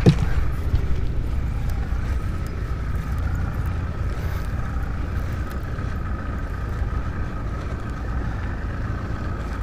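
Steady low wind rumble on an action camera's microphone, with a faint steady high whine underneath. One sharp knock comes right at the start.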